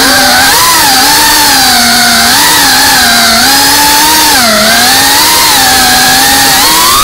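FPV quadcopter's electric motors whining loudly, heard from the onboard camera, the pitch wavering up and down with the throttle and dipping briefly about four and a half seconds in.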